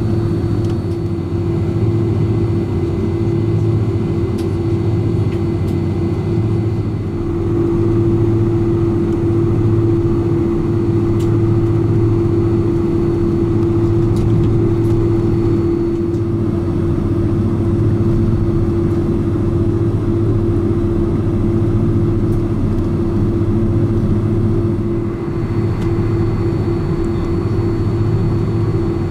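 Boeing 747-400 taxiing, heard inside the cabin: its General Electric CF6 engines running at low taxi power give a steady hum with a steady drone tone over it.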